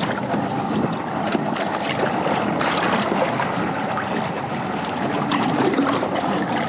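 Sea water sloshing and splashing along the side of a kayak: a steady rush of water with small splashes.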